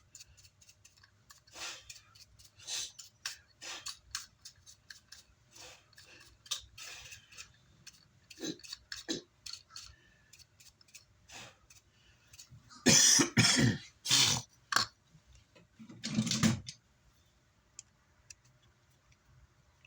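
Small clicks, taps and rustles of hands and parts being handled on a workbench, then two loud noisy bursts about three seconds apart near the end, the first longer than the second.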